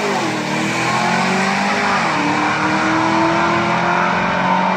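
Supercharged Cadillac CTS-V and its opponent running a drag race at full throttle, heard from beside the strip. Engine pitch climbs, drops sharply at a gear change right at the start and again about two seconds in, then climbs steadily.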